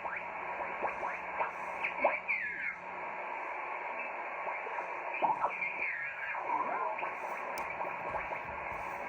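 Swan 350C transceiver's receiver audio as its VFO is tuned across an HF band: a steady hiss of band noise with short whistles that slide up or down in pitch as signals pass through the tuning.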